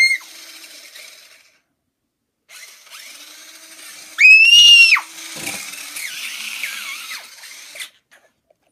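Small electric motor of a remote-control toy stunt car whirring in two spells, with a short pause about two seconds in. A child's high shriek cuts in about four seconds in and is the loudest sound.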